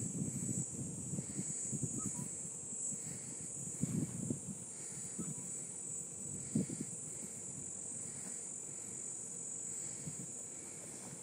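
Insects chirring steadily in a high pitch, over a low, uneven rumble with a couple of dull bumps about four and six and a half seconds in.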